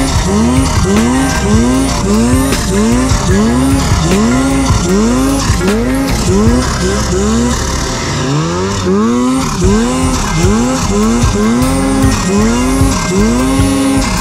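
Electronic background music: a repeating sliding synth figure about twice a second over held bass notes that change about halfway through.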